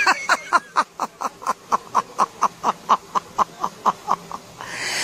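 A man laughing in a fast, even run of 'ha's, about five a second, each one dropping slightly in pitch. The laughter stops near the end as a rush of noise rises.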